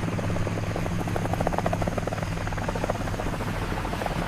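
Helicopter sound effect: a steady, rapid rotor chop over a low engine hum.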